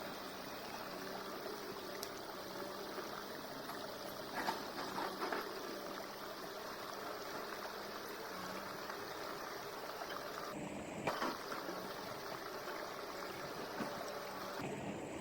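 Steady sound of flowing river water trickling, with a few brief knocks and handling noises about four to five seconds in and again about eleven seconds in.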